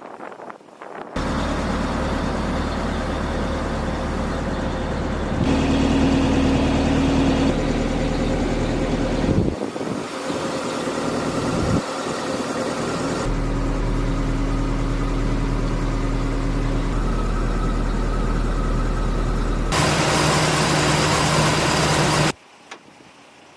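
A pickup truck's engine running steadily at idle, heard as a string of short spliced clips that cut abruptly from one to the next every few seconds.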